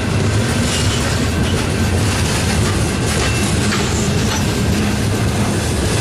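Loaded coal cars of a freight train rolling past, their steel wheels rumbling steadily on the rails with scattered clicks. Faint brief wheel squeals come twice.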